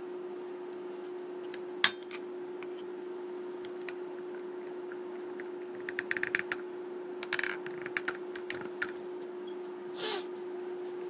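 Steady hum from the powered mini CNC pen plotter. Over it come a sharp click about two seconds in and, from about the middle on, short runs of quick clicks.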